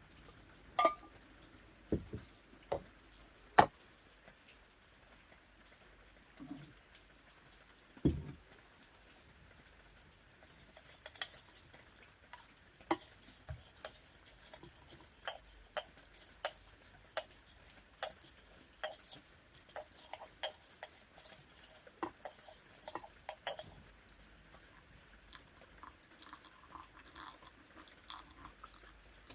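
A series of light clicks and taps at roughly one to two a second, after a few sharper knocks in the first seconds, in a small quiet room.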